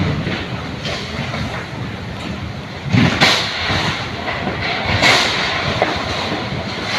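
Strong wind buffeting the microphone: a steady rumbling rush with louder gusts about three and five seconds in.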